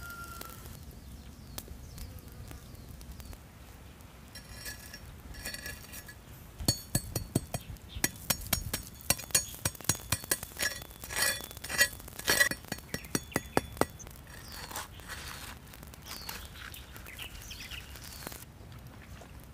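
Coarse salt heaped over prawns on hot embers, crackling and popping: a dense run of sharp clicks and cracks in the middle, with a few lighter clinks before it.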